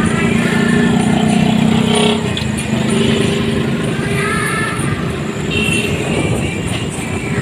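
Motorcycle engine running at a steady speed while being ridden along a town road, with road and traffic noise around it.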